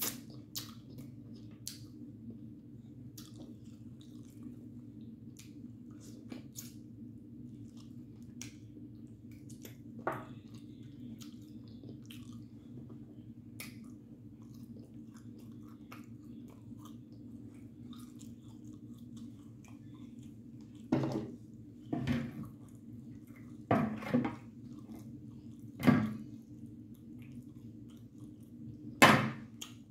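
Close-miked chewing and wet mouth sounds of someone eating barbecue-sauced baked chicken by hand, with many small clicks and several louder sounds in the last ten seconds. A steady low hum lies underneath.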